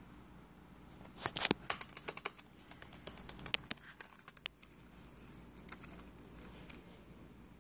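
Keys clicking on a laptop keyboard: a quick run of keypresses for about three seconds, then a few scattered presses.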